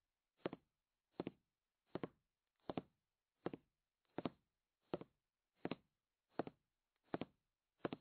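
A soft double knock repeating evenly, a little more than once a second, like a steady percussive beat.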